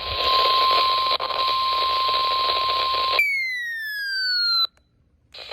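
NOAA Weather Radio warning alarm tone, a steady single tone near 1 kHz over radio static, which cuts off about three seconds in; it signals that a warning message follows. A single falling electronic tone follows for about a second and a half, then a moment of silence.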